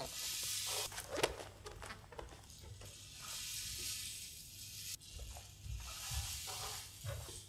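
Hissing, crackling noise swells from the performance's sound score, one cutting off abruptly about five seconds in. Soft thuds and shuffles of bare feet on the stage floor run under it.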